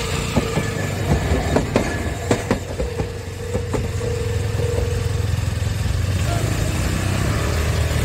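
Kagoshima City Tram car 9501 running along its track: a string of sharp wheel clacks over the rail in the first three seconds or so, over a steady low hum.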